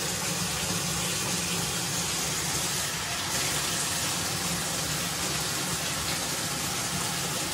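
Steady rush of water running into a bathtub.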